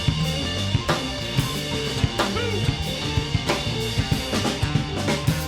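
A live rock band playing an instrumental passage: full drum kit with hard bass drum and snare hits and several cymbal crashes, over a driving bass line and guitars.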